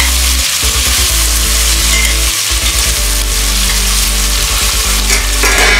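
Sliced onions sizzling in hot mustard oil in a steel pressure cooker as a spatula stirs them through.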